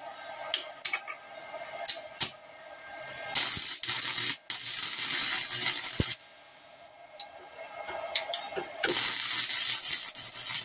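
Handheld 120-volt stick welder burning a 1/16-inch 6011 rod: after a few sharp ticks, the arc catches with a loud hissing crackle for about three seconds, goes out, and strikes again near the end. The welder's cooling fan hums steadily underneath.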